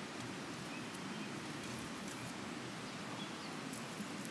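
Steady rushing of a river flowing past, with a few faint short chirps, likely birds, over it.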